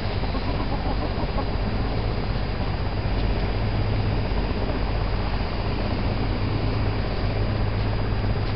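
Hens clucking quietly over a steady low background rumble.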